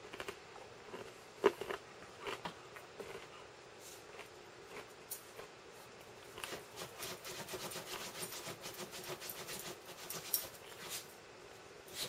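A schnauzer digging and pawing at a blanket on a bed, a run of quick scratching and rustling that is busiest in the second half, the dog nesting its bedding before lying down. A single sharp knock comes about a second and a half in.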